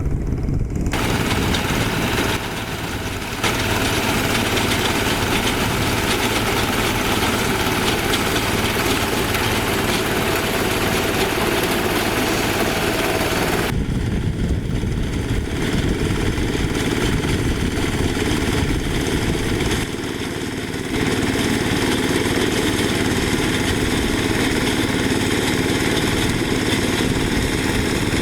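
Small diesel engine of a Quick H-140R rice harvester running steadily, with a dense mechanical hiss over the engine note. About 14 seconds in, the sound changes abruptly and much of the hiss drops away.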